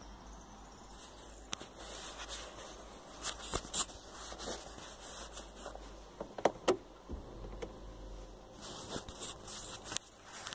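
Scattered clicks and taps of a hand working the trip-reset button and the ignition key of an Opel/Vauxhall Vectra C during an oil-service reset. A low steady hum comes in about seven seconds in.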